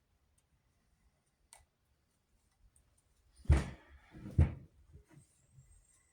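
Two sharp knocks about a second apart, with a faint click before them and lighter clicks after: crossbow parts being handled and set down during disassembly.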